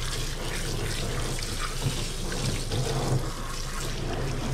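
Water running steadily during a cat's bath, with a steady low hum underneath.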